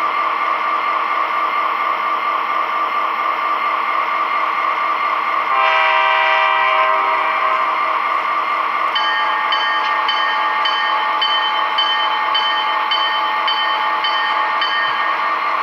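O gauge model diesel locomotive's onboard sound system playing an SD45-2 diesel sound file through its small speaker: a steady idling engine rumble, a single horn blast of about a second and a half, then the locomotive bell ringing about twice a second.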